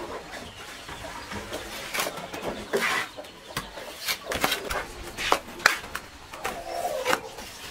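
A string of irregular sharp knocks or taps, with chickens clucking.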